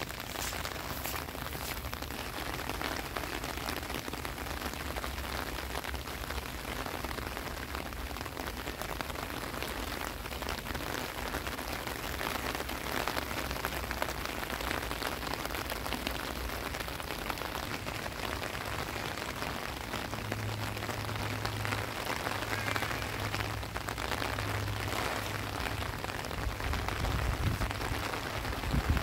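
Steady rain falling on grass and floodwater, an even hiss of drops, with a low rumble underneath.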